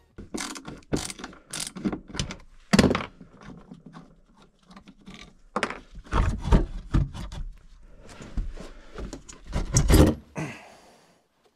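Steel pry bar prying an old toilet flange loose from a wooden subfloor: irregular knocks, clanks and scrapes, the loudest about three seconds in and again near ten seconds.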